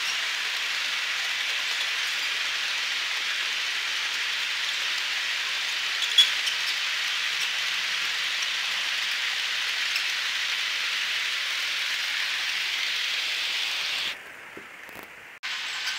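Steady rushing rattle of HO-scale passenger cars rolling on the track close by, with one sharp click about six seconds in. It drops off sharply near the end as the last car passes.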